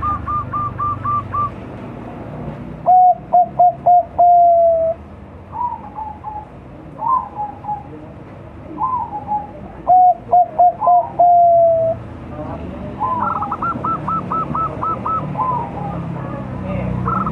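Bangkok-type zebra dove (perkutut), five months old, cooing: twice a loud phrase of about four quick notes ending in one long drawn-out note, with fainter, higher dove calls answering between the phrases.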